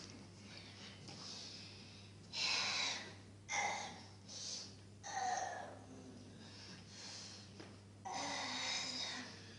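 A person making breathy, wordless vocal sounds: about six short bursts of gasping breath, a few with a brief voiced sound.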